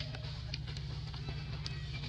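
Background music with a steady low bass, and a few short clicks.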